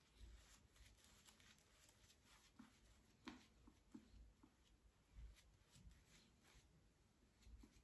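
Near silence, with faint soft swishes and small ticks from a Rockwell shaving brush working lather onto the cheek and jaw.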